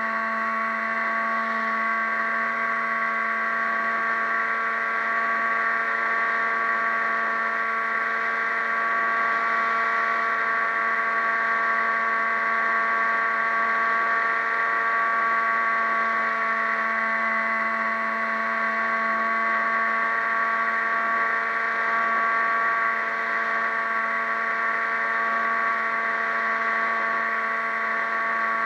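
A small motor running at a constant speed: an even, unchanging hum with a stack of overtones that holds its pitch throughout.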